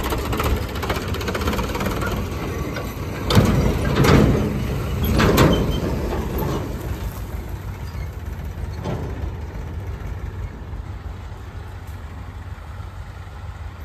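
Diesel farm tractor engine running steadily, with a few louder surges between about three and five and a half seconds in, then carrying on more quietly.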